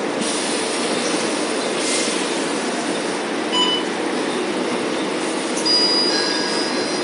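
Cabin noise inside a moving Volvo B9TL double-decker bus: a steady rush of its six-cylinder diesel engine and road noise. A thin, high squeal sets in near the end.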